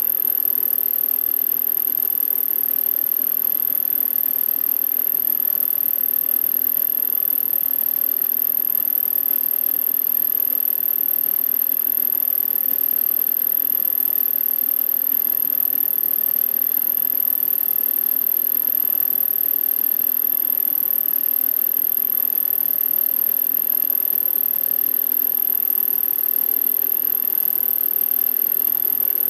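Millport Model 2S vertical milling machine running a face mill through a metal block under servo power feed: a steady hum of spindle and cutter during a finish cut with the feed rate raised slightly. A constant high thin whine sits over it.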